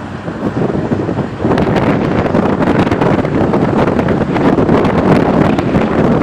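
Strong wind buffeting the microphone in a rough, rumbling rush that grows louder about a second and a half in and stays loud.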